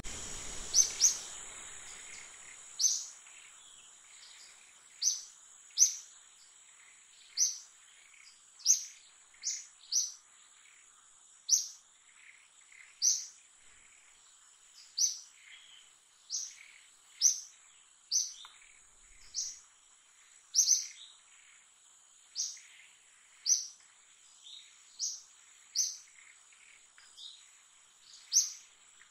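A bird giving short, sharp, high-pitched chirps, repeated about once every second or so, over a steady high-pitched whine that runs throughout.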